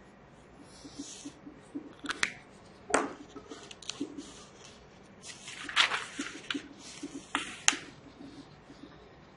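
Textbook pages being handled and flipped, with paper rustles in a few bursts and several sharp clicks and taps.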